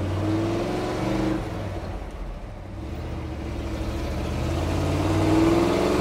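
The 390 V8 of a 1971 Ford F-250, heard from inside the cab, accelerating through the gears of its four-speed manual. The engine note rises, falls away about a second and a half in, then climbs steadily and gets louder toward the end.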